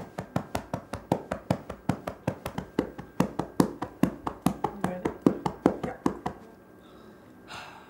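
Chest physiotherapy percussion for cystic fibrosis: a cupped hand clapping rhythmically on the chest wall through a towel, about four claps a second, stopping about six seconds in. The percussion loosens mucus in the infected lungs so it can be coughed up.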